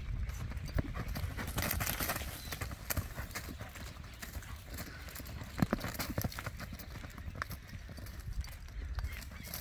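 Hoofbeats of a dun horse with black points (bayo cabos negros) galloping and turning on dry, dusty ground, over a steady low rumble, with one louder thud a little past halfway.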